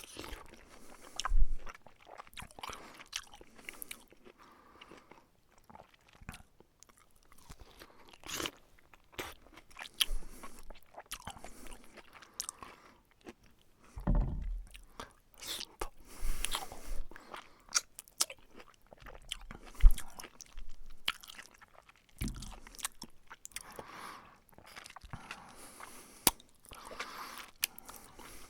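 A person biting into and chewing a juicy fruit close to the microphone: wet, crunchy bites, each followed by irregular chewing and slurping noises.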